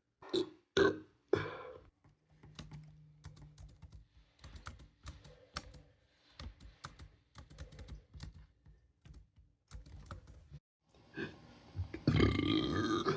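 A person burping: a few short burps in the first second and a half, then one long, loud burp about twelve seconds in. Faint scattered clicks in between.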